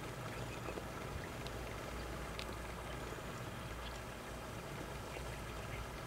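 Steady outdoor background hiss with a low rumble underneath, and a few faint, short high chirps scattered through.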